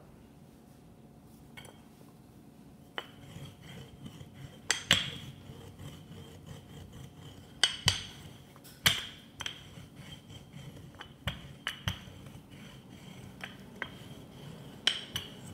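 Wooden rolling pin rolling dough out on a floured wooden board: a low rumble of the pin travelling over the wood, with sharp knocks and clicks every second or two. The first couple of seconds are quieter, before the rolling starts.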